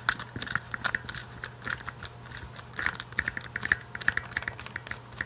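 Torx bit driver working the screws out of a Porsche 996 window regulator: a run of quick, dry clicks and small scrapes of metal and plastic, several a second, with brief pauses.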